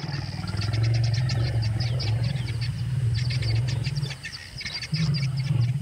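A large wild animal's deep, pulsing growl or rumble: one long growl, a short break, then a second growl near the end. Faint rapid high clicking runs above it.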